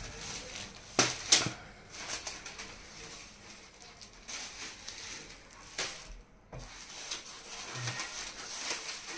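Stack of paper kites being handled and leafed through: thin kite paper rustling and crinkling, with a few sharp knocks, the loudest two about a second in.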